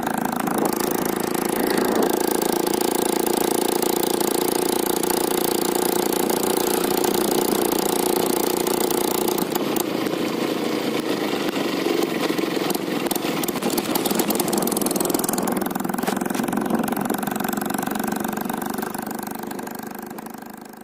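Two-stroke engine of a 1985 Rajdoot motorcycle running steadily while being ridden along the road. Around the middle the note dips briefly and there are a few knocks or rattles, then the steady running returns.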